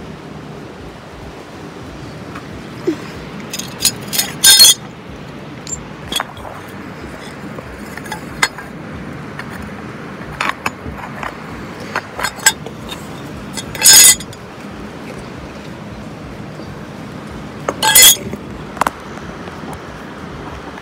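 Scattered clinks and knocks of objects being handled, with three louder clattering bursts about four, fourteen and eighteen seconds in, over steady background noise.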